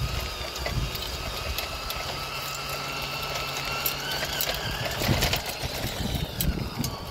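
1/24-scale RC rock crawler's small electric motor and geartrain whining as it drives, the whine shifting a little in pitch, with frequent small clicks and ticks throughout.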